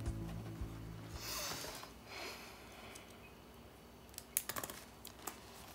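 A song fades out at the start. A pen then scratches on a notepad, and near the end comes a quick cluster of light clicks.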